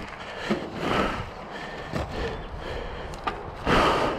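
A mountain biker breathing hard after a fast downhill run: several loud breaths, the strongest near the end, with a few light clicks and knocks in between.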